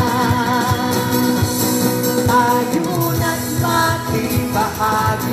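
Live pop song: several singers holding long notes with vibrato, accompanied by acoustic guitar over a steady beat.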